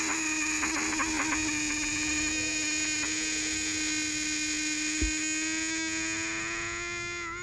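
Metal challenge coin pressed onto dry ice, singing a steady, sustained tone with many overtones as it chatters on the gas escaping from the ice. The pitch climbs slightly toward the end.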